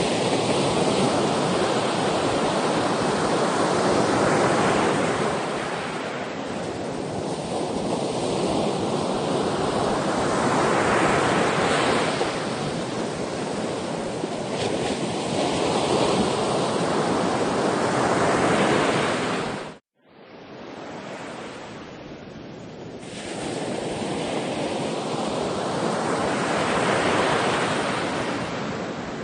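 Sea waves surging and washing in, swelling and ebbing in turn every four to five seconds. About two-thirds through, the sound cuts out abruptly for a moment, then comes back quieter and builds again.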